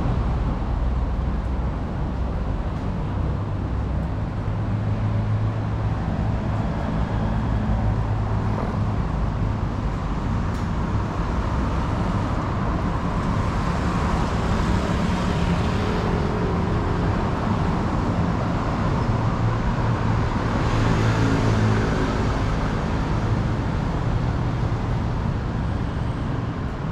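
City street traffic: car engines running with a steady low hum, and tyre and engine noise swelling as vehicles pass, most clearly about a quarter of the way in and again just past the middle.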